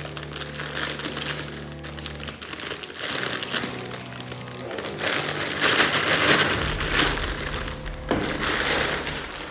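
Clear plastic bag of plastic toy bullets crinkling as it is opened and handled, loudest for a few seconds in the second half. Background music with sustained notes plays underneath.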